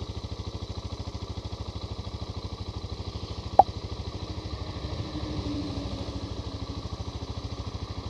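Suzuki DR650 single-cylinder engine idling with a steady, rapid, even beat. A single sharp click comes about three and a half seconds in.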